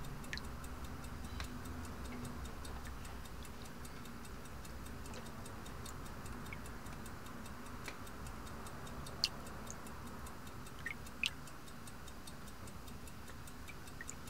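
A clock ticking quickly and evenly over a low steady hum, with a few sharper clicks scattered through, the loudest about nine seconds in.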